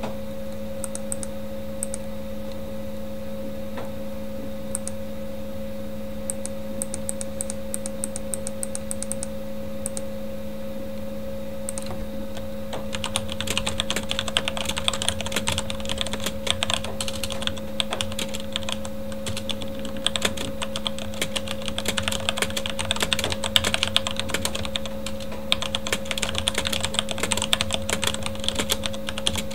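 Typing on a Corsair K70 mechanical keyboard with Cherry MX Red linear switches. Only a few faint scattered keystrokes at first, then fast continuous typing from about halfway through, over the steady hum of a computer fan.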